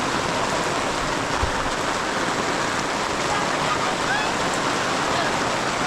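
Steady rain falling, an even hiss of drops hitting the ground.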